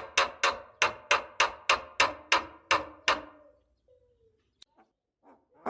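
A rapid run of sharp, evenly spaced knocking strikes, about three and a half a second, each with a short ringing tail. It stops a little after three seconds in, leaving a faint falling tone and a few faint short sounds.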